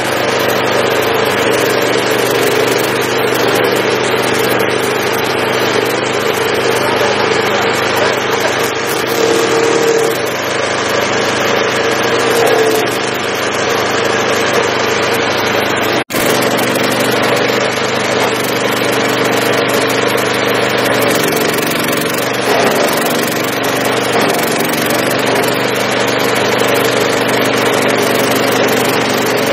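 Stump grinder's small petrol engine running steadily at speed, driving the 14-inch cutting wheel. Its pitch wavers briefly about three-quarters of the way through, and the sound drops out for an instant just past halfway.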